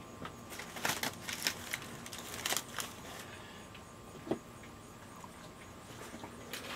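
Aluminium foil crinkling in short crackles as it is pulled open around a smoked pork loin, mostly in the first three seconds.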